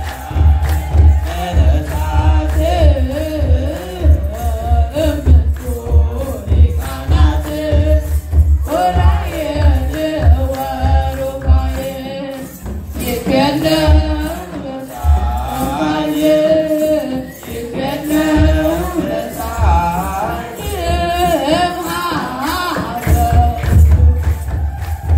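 Youth deacons chanting wereb, the Eritrean Orthodox hymn, together in phrases over a steady kebero drum beat with the metal jingle of sistra.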